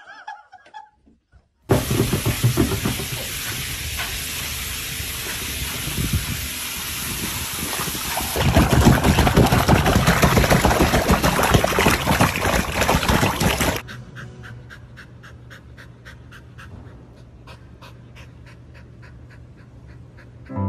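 Water rushing and bubbling with a steady hiss, which starts suddenly, grows louder about eight seconds in and cuts off sharply near fourteen seconds. After that comes a much quieter stretch with faint, fast, even ticking.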